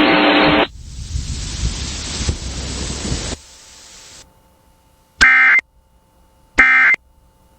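Static-like hiss that drops away over the first few seconds, then two short, loud bursts of warbling two-tone Emergency Alert System data, about a second and a half apart: the end-of-message code that closes the alert.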